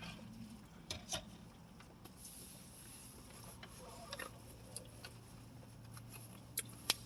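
Soft, scattered mouth clicks and smacks from someone chewing a breakfast sandwich, a few sharper clicks near the end, over a low steady hum.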